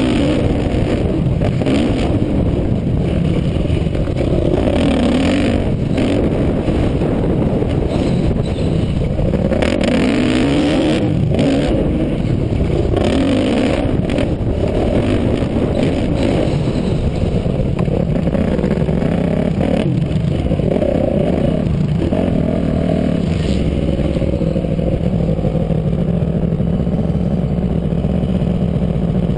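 Dirt bike engine revving up and falling back over and over as it is ridden hard around a dirt track, heard on board. The throttle is shut off briefly a few times.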